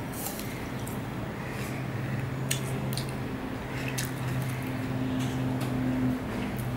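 Close-up wet chewing and biting of fresh fruit pieces such as orange segments and apple, with several sharp wet mouth clicks. A steady low hum runs underneath.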